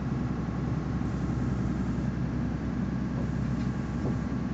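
A junk boat's engine running with a steady low drone, heard from inside a cabin.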